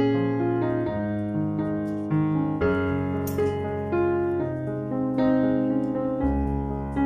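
Background piano music: a slow melody with sustained notes and chords.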